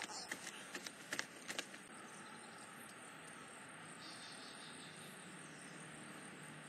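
A few light clicks and knocks in the first second and a half, then a faint, steady background hiss.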